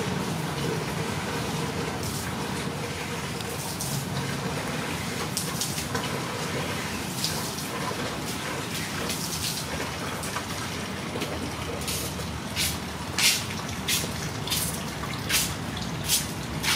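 Steady outdoor background noise with a low hum. Near the end comes a quick run of about seven short, sharp ticks, a little under a second apart.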